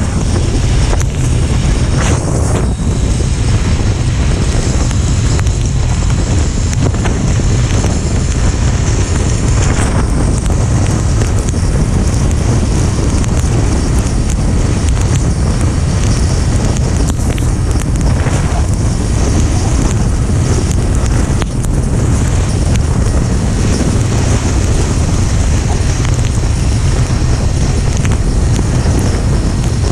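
Wind rushing over the microphone of a moving motorcycle: a steady, heavy low rumble, with the motorcycle's running and road noise underneath.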